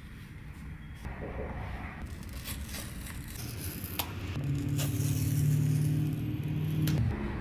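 Phone box packaging handled during an unboxing: scattered scrapes and sharp clicks of cardboard and packing. A steady low hum joins about halfway through and stops shortly before the end.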